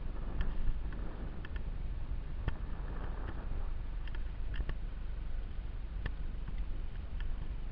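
Steady low rumble of wind and movement on a body-worn camera's microphone while moving along a forest trail, with a few scattered light clicks.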